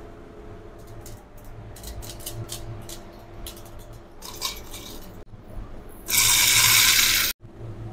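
Whole spices clinking as they are dropped by hand into a stainless steel mixer-grinder jar, followed about six seconds in by a loud rush of small seeds poured onto the steel for just over a second, which cuts off suddenly.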